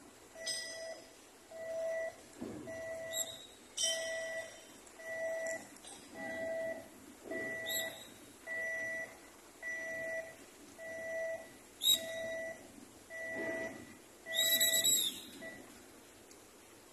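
Electronic warning beeper sounding a steady repeated beep, about one beep a second, that stops near the end. A few sharp metallic clinks fall between the beeps.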